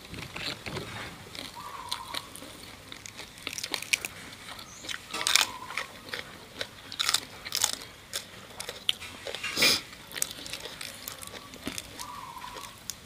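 People biting and chewing crunchy food, with sharp crunches at uneven intervals between quieter chewing.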